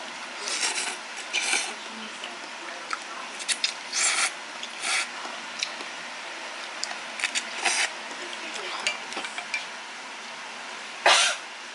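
Wooden chopsticks stirring and lifting ramen noodles in a pot of broth. They make short, irregular swishes, clicks and scrapes against the pot, with one louder stroke near the end.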